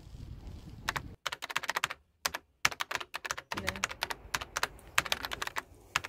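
Rapid, irregular clicking of typing on a computer keyboard. It starts about a second in and breaks off into dead silence twice.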